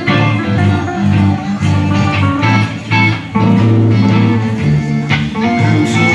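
Live rock band playing an instrumental passage on electric guitars, over a steady low bass line.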